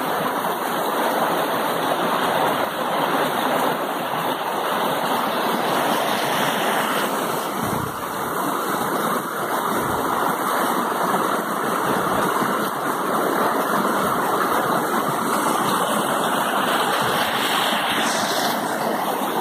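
Mountain creek rushing steadily over boulders in a small waterfall cascade: a continuous roar of white water.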